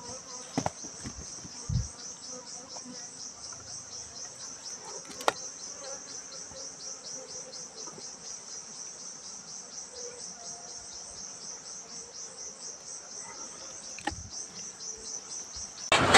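An insect, a cricket-like chirper, calls steadily in a high-pitched pulsing trill, about four pulses a second, with a few light knocks over it. Just before the end a loud hiss of heavy rain cuts in abruptly.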